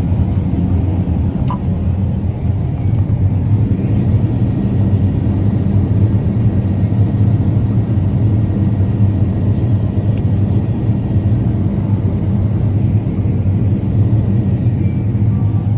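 Combine harvester running steadily while threshing soybeans: a constant low drone of the engine and the spinning threshing rotor, heard from on board the machine.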